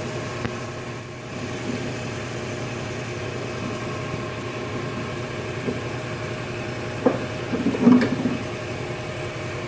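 Vintage Oliver wood lathe running at speed, a steady machine hum. A couple of sharp knocks and a short clatter come about seven to eight seconds in.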